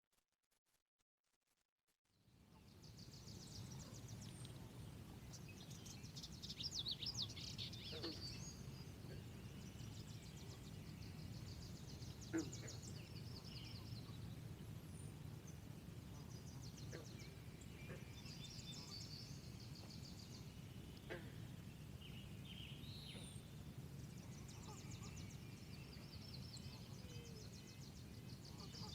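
Small birds singing repeated high trills and chirps over a steady low background rumble. The sound comes in about two seconds in, after near silence.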